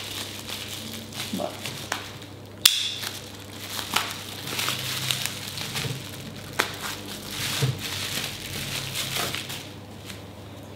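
Bubble wrap crinkling and crackling as it is handled and slit open with a utility knife, with one sharp snap a few seconds in.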